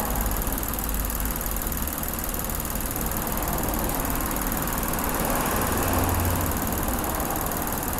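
Car engine idling steadily under an open hood, a constant low hum with an even mechanical hiss, swelling slightly for a moment past the middle.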